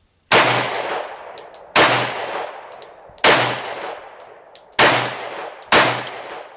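Glock 19X 9mm pistol fired five times, the first four about a second and a half apart and the last one quicker. Each shot has a long echo trailing off, with faint clinks between shots.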